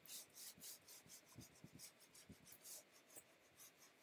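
Faint scratching of a pen drawing on paper, in quick short strokes about five a second.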